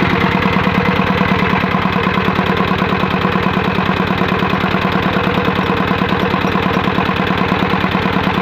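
Single-cylinder 'dompeng' diesel engine running steadily at close range, with a rapid, even chugging beat.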